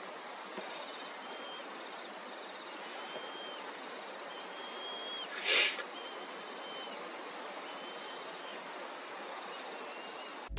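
Faint, high, thin calls repeating every second or so, each a short slurred whistle with a fast ticking trill just above it: an African fish eagle chick calling from its nest. About five and a half seconds in, a brief rush of noise is the loudest thing.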